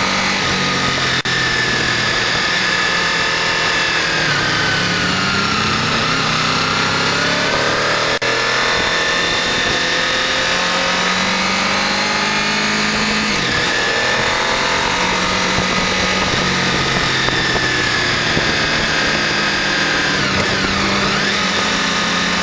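Honda VFR800 V4 motorcycle engine under way, its pitch rising and falling repeatedly as the throttle is rolled on and off and gears change, over steady wind noise.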